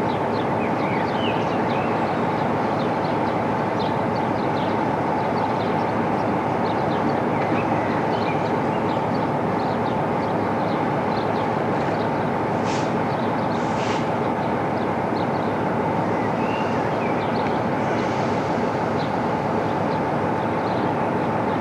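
Class 47 diesel locomotive's Sulzer twelve-cylinder engine running steadily, a constant heavy drone. Two short hisses come a little past halfway.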